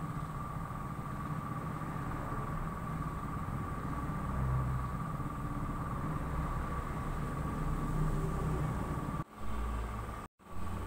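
Steady low rumble and hum with a faint constant whine, cutting out briefly twice near the end.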